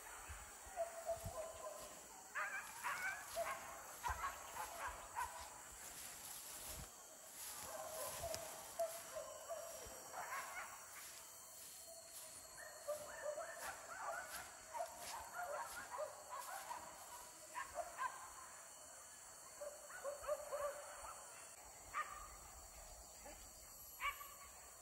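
Pack of hunting dogs on a chase, barking and yelping in quick strings of short high calls with brief pauses, faint.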